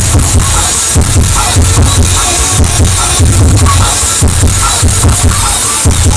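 Dance music played very loud through a large mobile sound system, with a heavy bass beat about twice a second.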